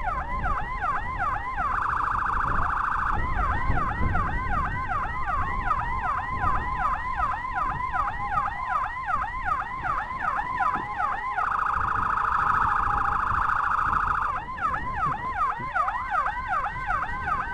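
Escort motorcycle's electronic siren sounding without a break in a fast yelp, about three rising-and-falling sweeps a second. It switches twice to a rapid warble for a few seconds, and near the end to a steady tone.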